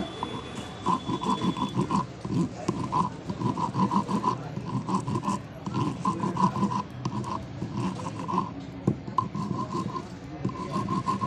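A flat metal file rasping back and forth over a motorcycle battery's newly built lead terminal, in quick uneven strokes about two a second, shaping and smoothing it.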